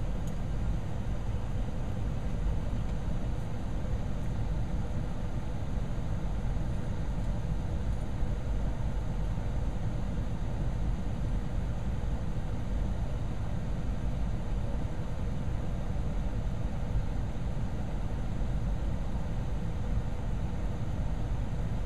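Steady outdoor background noise with a low rumble, even throughout and with no clear events.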